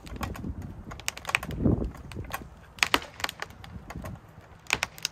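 Scattered sharp clicks and knocks at an uneven pace, with a heavier dull thump a little under two seconds in.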